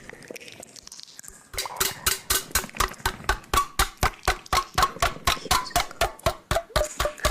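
Fingers tapping rapidly and repeatedly on a microphone, an even run of sharp knocks about five a second that starts about one and a half seconds in.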